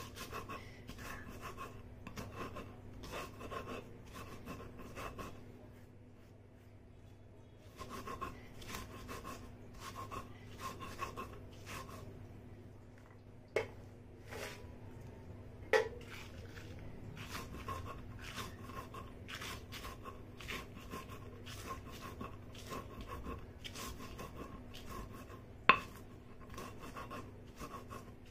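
Stone roller of a sil-batta grinding a wet paste of salt, garlic and chillies on the flat grinding stone, rubbing and knocking in repeated strokes of about three a second. The strokes ease off for a few seconds around the sixth second, and three sharper knocks stand out among them.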